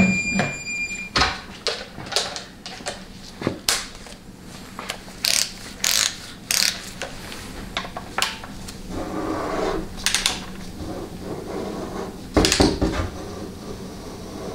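Ratchet-head torque wrench turning 700R4 valve body bolts: repeated short ratcheting strokes and metal tool clicks. A short electronic beep sounds right at the start.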